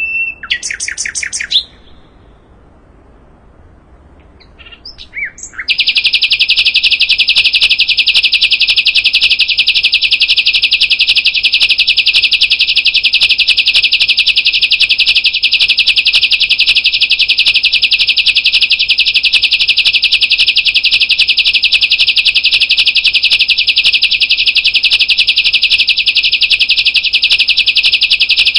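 Sikatan londo song: a brief fast trill, a short pause with a few soft notes, then a long, loud, unbroken rapid trill of evenly repeated high notes.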